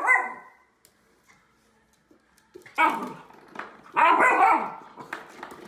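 Dog barking: a bark at the start, a pause of about two seconds, then a string of barks.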